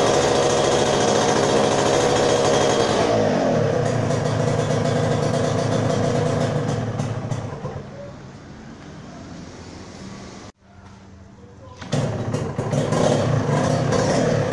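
Yamaha TZM 150's two-stroke single-cylinder engine running at high revs after ten years of standing, with the revs falling away about three seconds in. The sound sinks low around the middle, cuts out briefly, and the engine is heard running again near the end.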